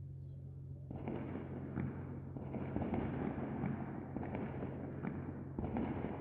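Fireworks crackling in dense rapid volleys of pops, starting about a second in, easing briefly and surging again near the end, over a low steady hum.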